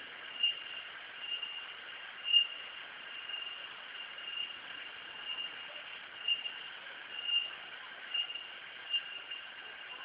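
Insects shrilling in a steady, high-pitched chorus, with louder chirps swelling roughly once a second, over a faint rush of river water.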